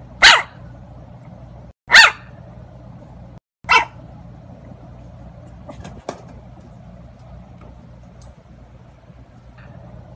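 A puppy barking three times, short high barks about a second and a half to two seconds apart. After them only faint rustling and a couple of light clicks.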